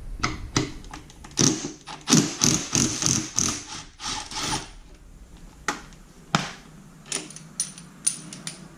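Hand tools and metal parts clicking and knocking during disassembly work: a busy run of quick knocks and rattles for a few seconds, then a few separate clicks.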